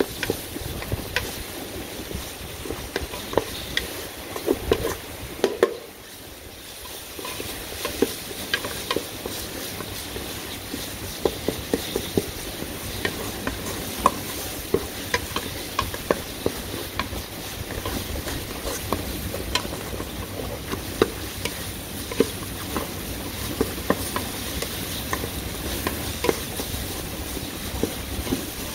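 Wooden spatula stirring a ground spice paste frying in oil in an aluminium pot, scraping and knocking against the metal in frequent, irregular clicks over a steady sizzle.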